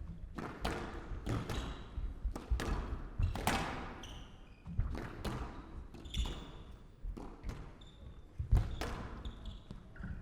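A squash rally: the ball cracks off rackets and the court walls again and again, every half second to a second, with short squeaks of players' shoes on the court floor between the shots.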